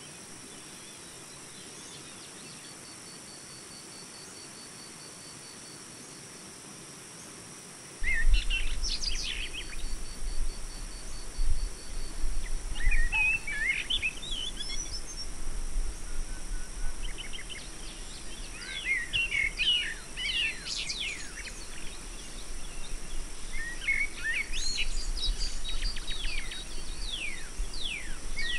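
Birds chirping in short clusters of quick, sliding high notes, over a steady low rumble that starts suddenly about eight seconds in; before that only a faint steady hiss.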